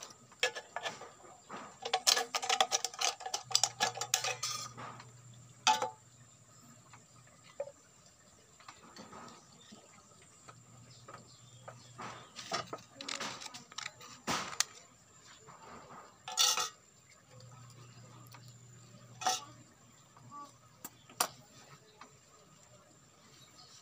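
Thin tin-can sheet metal being handled and snipped with scissors: sharp metallic clinks and snips, a dense run of clinking a couple of seconds in, then scattered single clicks.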